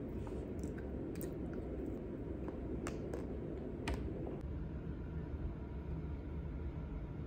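Light clicks and taps of a small wooden spoon against a paper ice-cream cup, about eight of them over the first four seconds, over a steady low hum. After about four and a half seconds the clicks stop and only a steady low rumble is left.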